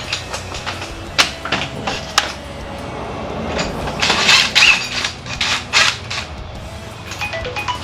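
Metal tools and engine parts knocking and clinking at irregular intervals as a motor mount is worked on, with a busier run of clatter about four to five seconds in.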